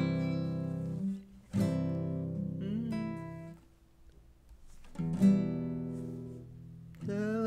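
Acoustic guitar strummed in single chords, three of them, each left to ring out and fade, with a short near-quiet pause between the second and third.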